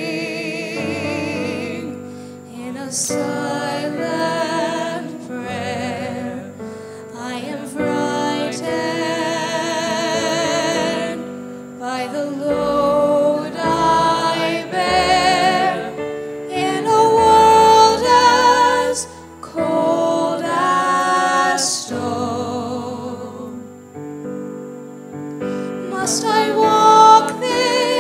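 A singer holding long notes with vibrato, in phrases separated by short breaths, over keyboard accompaniment.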